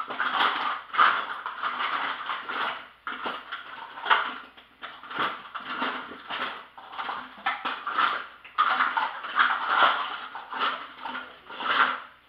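Rummaging through a kitchen utensil drawer in search of a potato masher: irregular bursts of rattling and clattering with short pauses.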